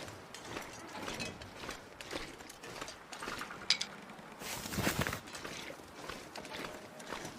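Handling noises from making tea: scattered light knocks and clicks, one sharp click about halfway, and a brief rushing noise about five seconds in.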